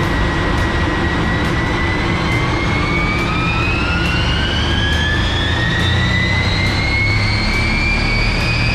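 Mercedes-Benz S320 CDI's V6 turbodiesel under full load on a rolling-road dyno, running hard with a high whine that climbs steadily in pitch from about two seconds in as road speed builds through the power run.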